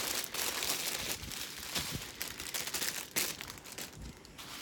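Clear plastic bags crinkling as a bag packed with small resealable baggies of resin diamond-painting drills is handled and the baggies are tipped out onto the canvas. The crinkling eases off near the end.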